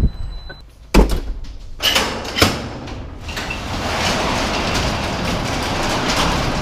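A sharp knock and two clanks, then a metal roll-up garage door rattling steadily as it is raised.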